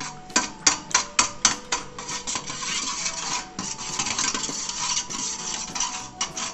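Wire whisk beating a thin liquid mixture in a stainless steel bowl, its wires clicking and scraping against the metal. It starts as separate clicks about three times a second, then after about two seconds becomes a faster, steady scraping.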